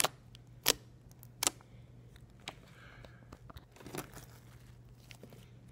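Slime squeezed and pressed by hand, giving a series of sharp clicks and pops: three loud ones in the first second and a half, then scattered fainter ones.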